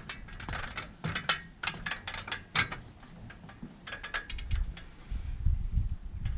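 Aluminium ladder clicking and knocking under someone's feet as they climb it: a quick string of sharp metallic clicks, a second cluster about four seconds in, then a low rumble.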